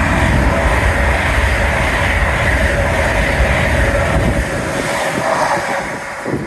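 A train passing close by at speed: a loud rush and low rumble with a steady whine running through it. The rumble drops away about four seconds in, and the whole sound fades near the end.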